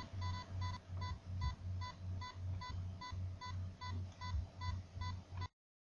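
Electronic background music of a low bass pulse and a short high beep, repeating evenly about three times a second. It cuts off abruptly about five and a half seconds in.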